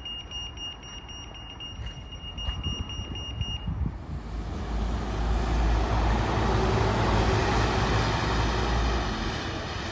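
A steady high-pitched electronic tone runs for the first three and a half seconds and then stops. A double-decker bus then passes on a wet road: its engine rumble and tyre hiss swell, stay loud for a few seconds and ease off near the end.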